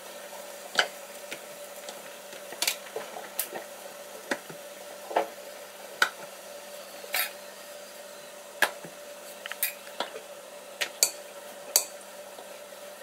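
Rolling pin knocking and clicking against a granite countertop while parotta dough is rolled out. Irregular sharp knocks come about once a second over a faint steady hum.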